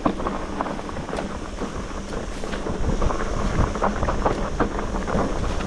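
Mountain bike riding down a rough, stony trail: wind buffeting the microphone, with tyres crunching over rocks and the bike rattling in many short knocks.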